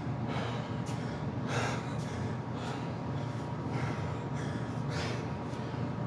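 A man breathing heavily, a string of hard breaths about one a second, winded partway through a set of squats. A steady low hum runs underneath.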